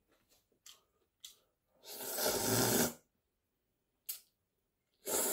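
Noodles slurped twice, each a noisy rush about a second long, with a few faint clicks of chewing between.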